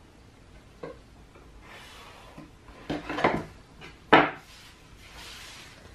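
Small handling sounds of a metal ruler, marker and paper on a wooden table. A click comes about a second in and a clatter around three seconds. A sharp knock just after four seconds is the loudest, as a tool is set down on the tabletop, and a soft paper rustle follows.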